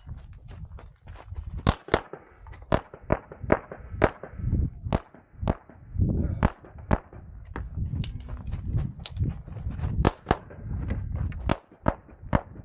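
CZ Shadow 2 9mm pistol fired in a long run of sharp shots through a match stage, often several a second, with brief pauses between strings.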